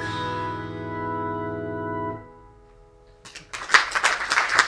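The song's final sustained keyboard chord, with an organ-like tone, held and then cut off about two seconds in. After a pause of about a second the audience breaks into loud applause.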